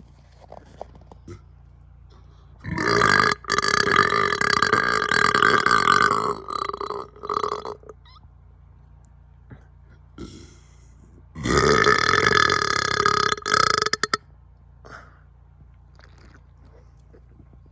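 A person burping loudly on purpose, twice. The first burp is long, about five seconds with short breaks in it. The second comes about three and a half seconds later and lasts about two and a half seconds.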